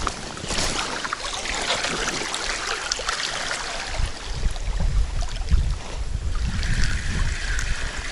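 Wind buffeting the microphone over water lapping and running at a riverbank, an irregular low rumble under a steady hiss.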